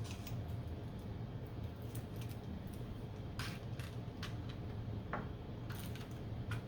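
Light, scattered clicks and small rattles of IC chips and their packaging being handled and sorted, about half a dozen sharp ticks, most of them in the second half, over a steady low background hum.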